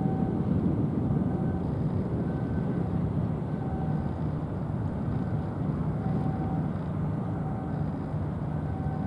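Steady low rumble of a large bulk carrier's engine and hull passing close by.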